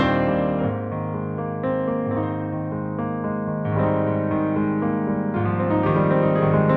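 Piano music for a ballet class plié exercise: slow, sustained chords.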